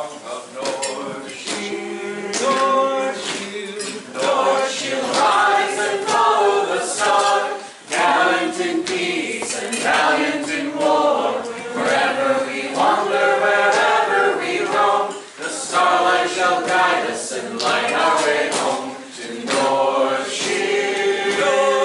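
Unaccompanied singing of a song, in phrases a few seconds long with short breaks between them.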